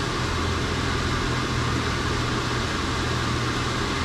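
Small portable electric fan running at full blast: a steady rush of air with a low hum underneath.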